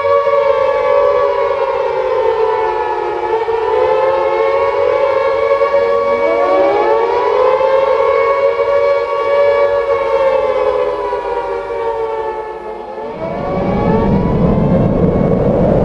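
Tornado warning sirens wailing, several overlapping tones slowly rising and falling; another siren winds up about six seconds in. About thirteen seconds in, a loud low rushing noise joins them.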